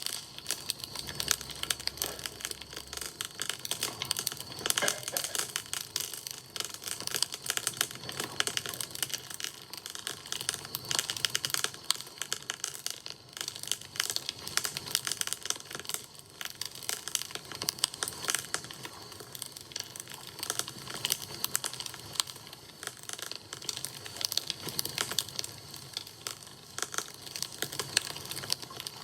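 Wood fire crackling, with a steady run of quick, sharp pops and snaps.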